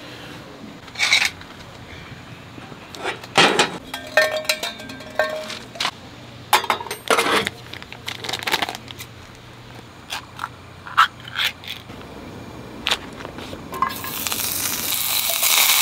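Cooking at a camp gas stove: crinkling of a plastic food packet and scattered clinks and scrapes of metal utensils on a small stainless pan. Near the end a steady sizzle starts as food goes into hot fat in the pan.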